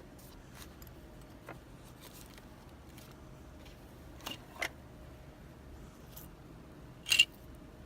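Faint, scattered clicks and taps of small metal lock parts and tools being handled, with a sharper clatter about seven seconds in.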